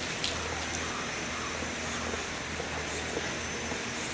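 Steady low rumble and hiss of background noise, with a faint click about a quarter of a second in.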